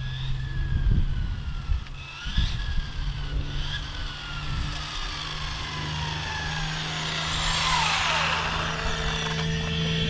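High-pitched whine of a 6S brushless ARRMA RC car's motor at speed, with tyre hiss. The whine grows louder as the car approaches, peaks about eight seconds in, then drops steeply in pitch as the car slows to a stop.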